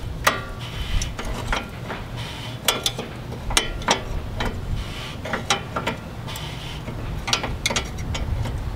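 Irregular metallic clicks and clinks from a hand tool turning the threaded collars on a coilover, backing the spring perch down to take the load off the spring.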